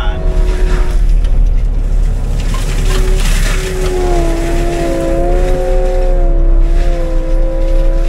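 Skid steer forestry mulcher running under load, heard from inside the cab: a steady low engine rumble with a whine that wavers up and down in pitch as the mulcher head works into brush, growing stronger about halfway through.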